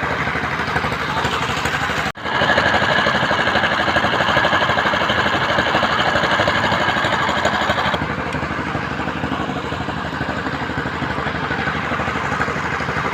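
Construction machine engine running steadily with a fast even chugging. About two seconds in the sound cuts out for an instant and comes back louder, with a high whine over it that stops about eight seconds in.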